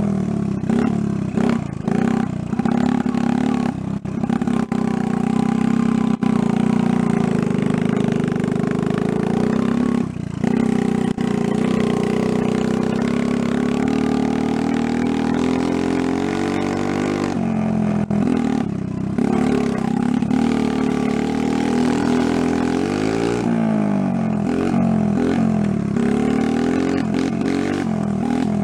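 Honda 50 mini trail bike's small four-stroke single-cylinder engine running under way, its note rising and falling as the throttle is opened and eased off. There are brief drops a few times along the way.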